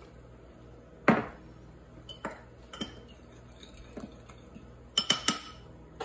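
Metal fork knocking and clinking against a glass bowl while stirring partly cooked microwaved eggs: one sharp knock about a second in, a few lighter taps, then a quick run of ringing clinks near the end.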